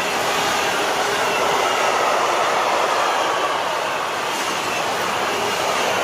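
Intermodal freight train's loaded wagons rolling past close by: a steady, continuous noise of steel wheels running on the rails.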